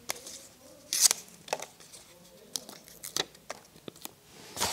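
Scattered rustles and light crinkles of latex and foil balloons being handled and tied by hand, with a sharper crinkle about a second in and more handling noise building near the end.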